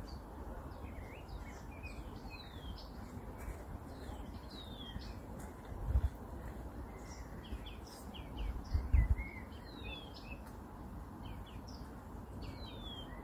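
Blyth's reed warbler singing: a continuous, varied song of short high whistles and downward slurs, with some notes repeated in small groups. Low thuds break in about halfway through and again a few seconds later, over a faint steady background rush.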